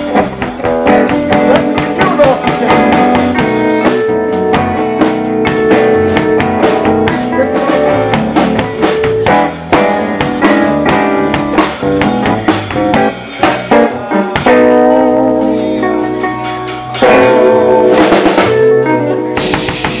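Live band playing without vocals: acoustic guitar, electric bass, drum kit and keyboard. The song closes on a final hit a little before the end, leaving a bright ring.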